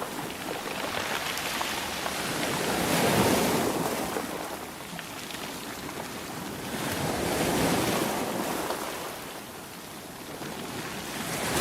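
Sea waves rolling in and washing back, rising and falling in slow surges about every four to five seconds.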